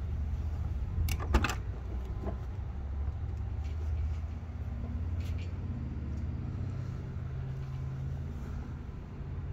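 Car door latch clicking as the driver's door of a 1965 Mustang fastback is opened, a quick double click about a second in, followed by a few fainter clicks. A steady low rumble runs underneath.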